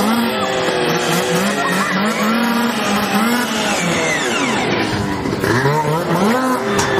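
Snowmobile engine running and being revved, its pitch rising and falling unevenly, dropping away about four seconds in and climbing back up again a second later.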